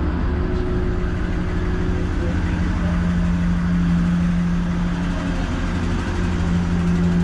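Commuter train's engine running with a steady hum heard inside the passenger carriage, its low tone getting a little louder about three seconds in.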